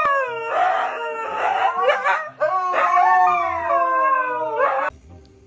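A dog howling: two long howls, each sliding downward in pitch, with a brief break between them; the howling stops shortly before the end.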